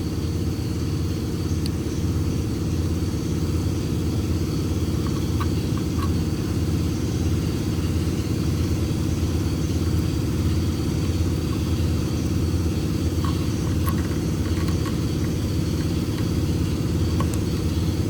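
Steady low mechanical hum of a running motor, unchanging throughout, with a few faint small clicks over it.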